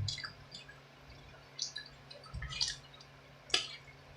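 Close-up wet eating sounds from sauce-covered seafood: a handful of short, squishy mouth smacks and slurps spread across a few seconds.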